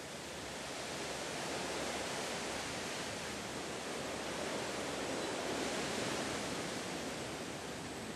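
Steady outdoor rushing noise with no distinct events, swelling gently and easing again.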